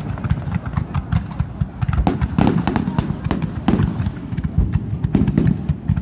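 Fireworks going off: many sharp cracks and pops in quick, irregular succession over a constant low rumble.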